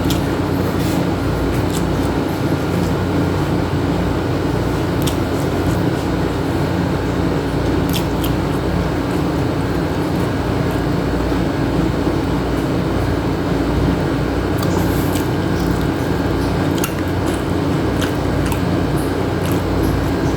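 Wet chewing and eating sounds with scattered small clicks, over a loud steady mechanical hum.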